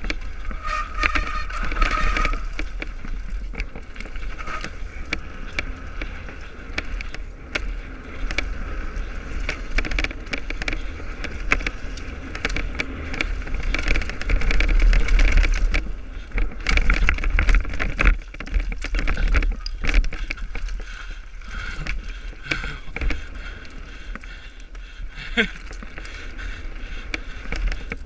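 Mountain bike descending a rough gravel trail: wind rumbling on the camera's microphone, tyres rolling over loose stones, and the bike rattling and knocking over bumps.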